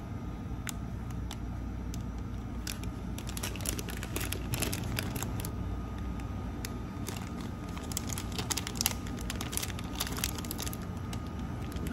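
Plastic wrapper of a packaged croissant crinkling and crackling as it is opened and pulled back, in a quick, irregular run of crackles through the middle stretch, over a steady low hum of room noise.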